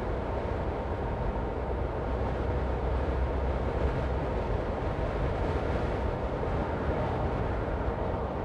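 Steady road noise of a car driving along: an even rumble of tyres and engine with no sudden events.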